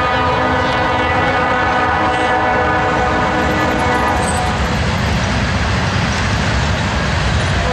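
Lead diesel locomotive's multi-note air horn sounding one long blast of several notes at once, lasting about four and a half seconds, over the low rumble of the passing freight train; another horn blast begins right at the end.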